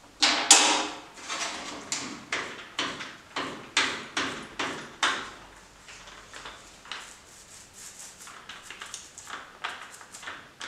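A spreader scraping grey filler on the cast-iron headstock casting and mixing board: a run of quick scraping strokes, about two a second, each with a sharp start, loudest in the first five seconds, then softer, quicker strokes.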